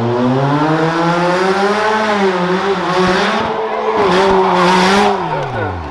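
Rough truck's racing engine held at high revs, its pitch wavering up and down, with a rush of noise between about three and five seconds in, then the revs falling away sharply near the end as the throttle comes off.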